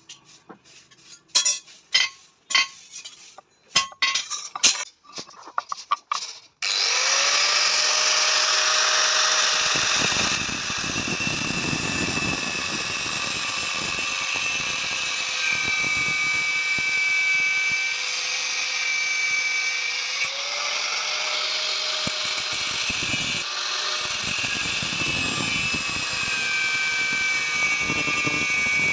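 A run of sharp, irregular clicks, then an angle grinder starts suddenly about six and a half seconds in and cuts into the steel spearhead blank. Its steady high whine drops and rises as the disc bites into the metal.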